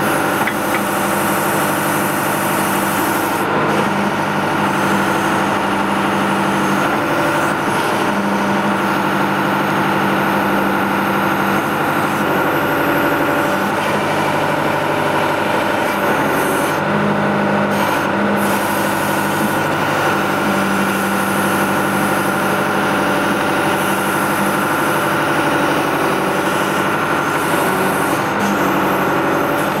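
John Deere 310D backhoe loader's diesel engine running steadily while the backhoe is worked, its pitch shifting slightly every few seconds.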